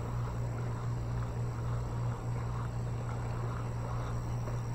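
Evening outdoor ambience: insects keep up a steady high-pitched trill over a steady low hum.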